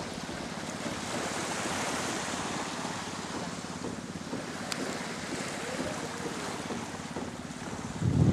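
Wind over the sea and small waves washing on a sandy shore, an even hiss, with wind buffeting the microphone. A short, loud, low buffet comes near the end.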